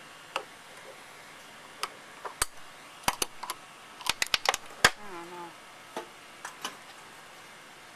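Irregular sharp metal clicks and clinks from a ratchet handle and socket extension working the carburetor mounting screws on a Toro Personal Pace mower engine, with a quick run of clicks about three to five seconds in.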